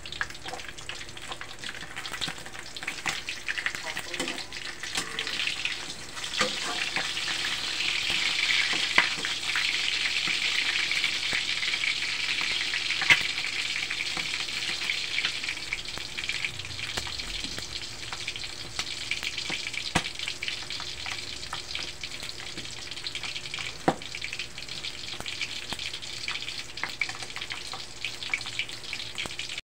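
Fish frying in hot oil in a wok: a steady sizzle, loudest through the middle stretch. Now and then a spatula knocks against the wok with a sharp click.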